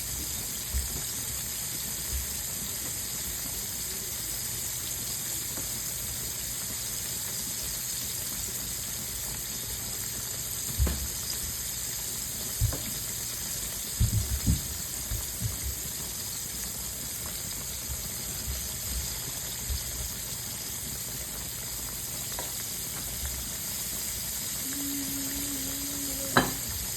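Sliced potatoes frying in hot oil, a steady sizzle throughout. Scattered low knocks come over it, most of them in a cluster around the middle, and a brief steady hum sounds near the end.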